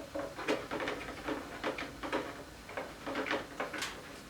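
Irregular small clicks, ticks and scrapes of parts being handled as the snowblower engine's oil fill cap and dipstick are unscrewed and pulled for an oil check.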